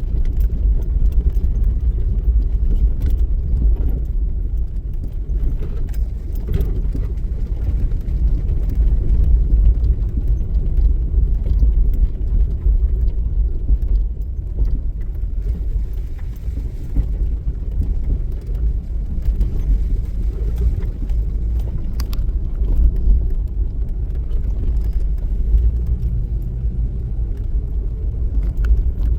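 Jeep being driven along a dirt forest road, heard from inside the cab: a steady low rumble of engine and tyres, with occasional small knocks and rattles.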